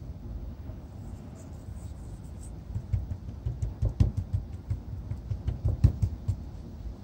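Fingers patting and rubbing seasoning into a raw salmon fillet on a bamboo cutting board: a run of quick, irregular soft taps and rubs starts about halfway through, over a steady low rumble.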